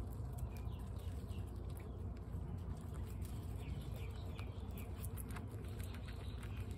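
Guinea pigs crunching dry pellets from their bowls: many small, irregular crunching clicks. Faint high chirps come in short runs a few times over a steady low hum.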